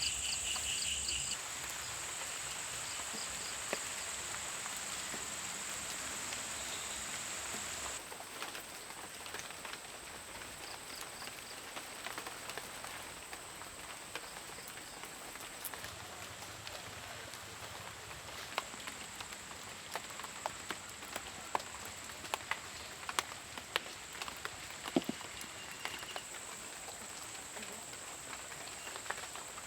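Outdoor insect chorus: a steady high insect drone throughout, with pulsing cricket chirps for about the first second and a half. Scattered light clicks and taps, more frequent in the second half.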